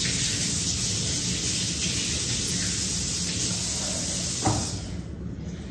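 Kitchen tap running steadily into the sink as sticky hands are rinsed under it; the water is shut off near the end.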